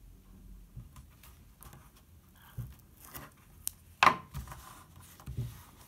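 Hands rubbing and pressing tape strips down onto cardboard and paper on a tabletop: soft scuffs and rustles, a few light taps, and one sharper knock about four seconds in.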